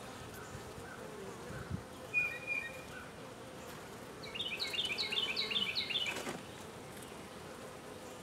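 Honey bees buzzing steadily around an open nuc hive as a frame of bees is lifted out. About four seconds in, a bird sings a quick run of repeated chirps for about two seconds.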